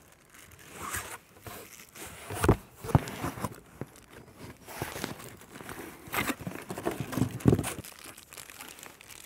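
Clear plastic packaging crinkling and rustling as a small accessory is unwrapped by hand, with cardboard packing being handled and a few sharper knocks, the loudest about two and a half, three and seven and a half seconds in.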